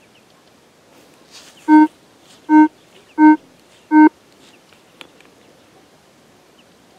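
Rutus Alter 71 metal detector beeping four times during ground balancing: four short, loud beeps of the same low pitch, evenly spaced about two-thirds of a second apart.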